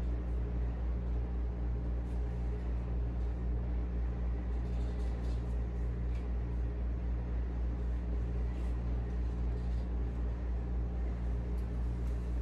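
A steady low hum that holds unchanged throughout.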